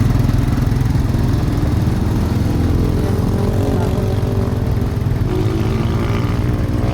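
Bus engine running steadily with a low rumble. A fainter pitched sound joins over it about five seconds in.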